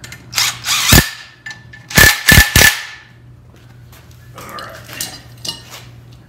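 Cordless impact wrench hammering on a bolt at the flywheel of a Continental flathead four, the flywheel held by a welded flat-bar lock: a longer run about half a second in, then three short bursts around two seconds in. A steady low hum runs underneath.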